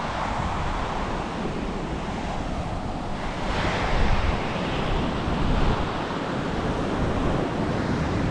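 Heavy surf breaking on the beach, a wave surging and crashing about three and a half seconds in, with wind buffeting the microphone.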